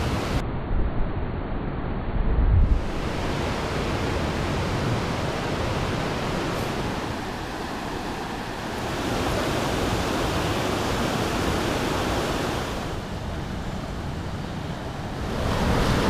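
Steady rush of the Niagara River's white-water rapids pouring toward the brink of the falls. Wind buffets the microphone for the first couple of seconds.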